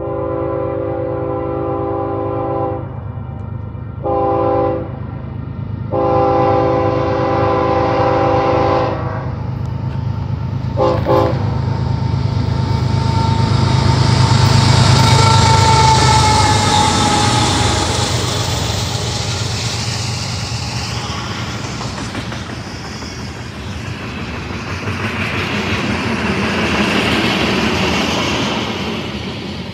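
Freight train's diesel locomotive air horn sounding for a grade crossing: a long blast, a short one, another long one and a brief final toot, over the deep rumble of the diesel engines. The locomotives pass close, loudest about halfway through, and the freight cars follow, wheels clattering on the rails.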